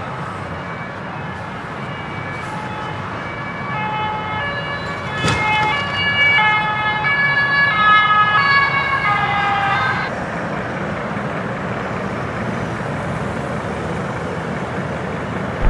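Emergency vehicle siren alternating between two pitches over steady motorway traffic noise. It grows louder to a peak about eight seconds in, then cuts off abruptly about ten seconds in.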